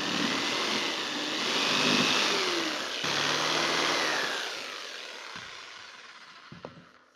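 Corded jigsaw cutting a round hole through the top of a plastic water tank, its motor pitch wavering as the blade works through the plastic. It stops briefly about three seconds in, runs again, then dies away over the last couple of seconds as the cut is finished.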